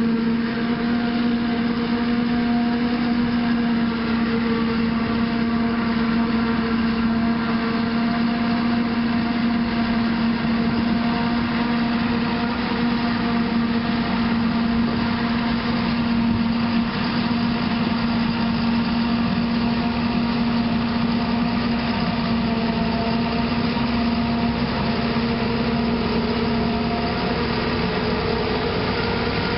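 Farm machinery engines running steadily during maize harvesting: a constant drone with one strong, steady hum.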